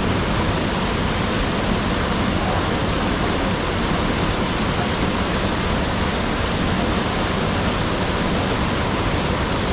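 A waterfall: falling water rushing in a loud, steady, unbroken roar.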